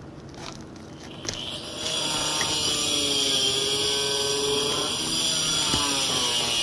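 A few light metal taps from a pry bar and hammer on asphalt shingles, then about two seconds in a loud steady small-engine drone starts and keeps on, its pitch slowly wavering up and down.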